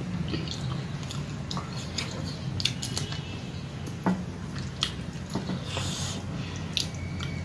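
Close-up eating sounds: fingers squishing rice and curry on a plate, with chewing and wet mouth clicks scattered throughout, over a steady low hum.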